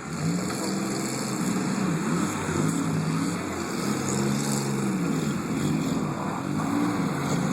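Several demolition derby car engines running and revving, their pitch rising and falling over one another.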